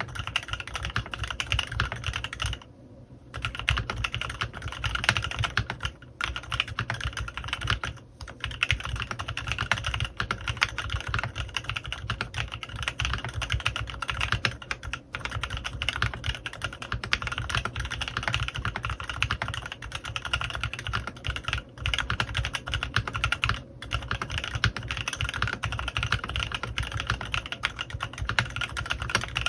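Fast, continuous typing on a CannonKeys Rekt1800 custom mechanical keyboard with stock, unlubricated Kailh x Swagkeys Lavender prototype switches under PBT keycaps. There is a brief pause about three seconds in and a few short breaks later.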